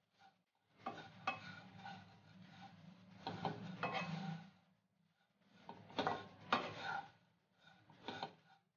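A wooden spatula stirs dry, thin poha (flattened rice) flakes being dry-roasted in a nonstick pan. The flakes rustle and scrape, with a few sharp clicks of the spatula against the pan, in three bouts, the last one short.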